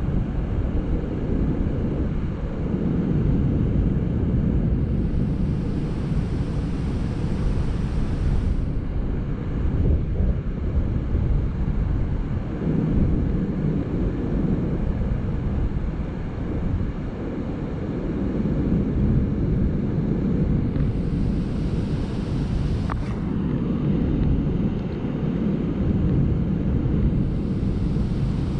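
Steady low rushing rumble of water pouring through a dam spillway, with wind buffeting the microphone.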